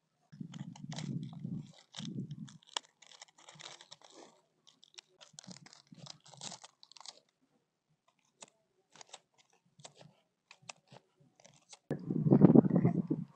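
Small knife crunching through crisp green onions on a round pan, a run of quick sharp cuts. Short low rumbles at the start, and a louder low rumble near the end.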